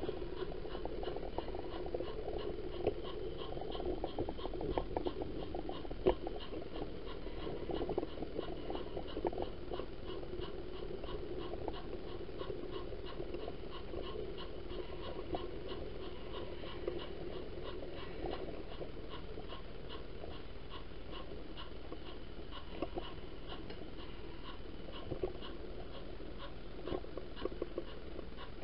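Model freight train running along its track, heard from a car it is pulling: a steady motor whirr and rumble with many small clicks of wheels over the rails.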